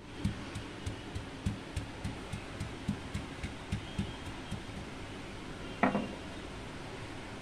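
Sil batta grinding stone pounding a breadcrumb-coated slice of chicken breast in a steel tray to flatten it: soft dull thuds about three a second for four seconds or so, then one louder knock with a brief ring about six seconds in.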